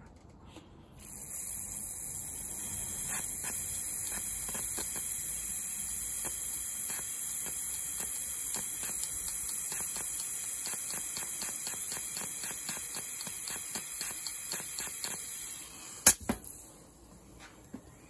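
Aerosol carburettor cleaner hissing through a fuel injector held on the can, with irregular rapid clicks as the injector is pulsed open from a 12-volt battery to clean it. The hiss stops near the end, followed by one sharp click, the loudest sound.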